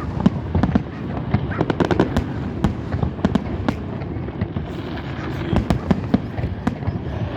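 Fireworks display going off in a rapid, irregular string of bangs and sharp pops.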